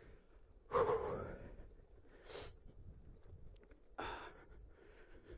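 A man breathing hard, three heavy exhalations about a second and a half apart, the first the loudest: winded after a steep hill climb.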